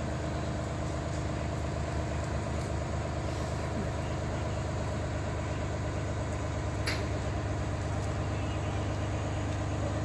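Demag HC-810 truck crane's diesel engine running steadily while the crane holds and lowers a steel girder on its hook. A brief click about seven seconds in.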